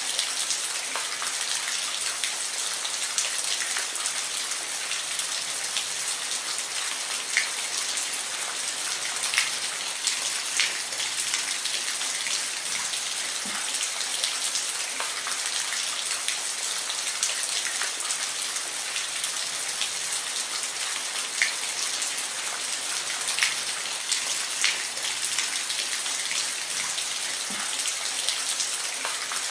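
Steady rain: an even hiss of falling rain, with the odd louder drop striking close by at irregular moments.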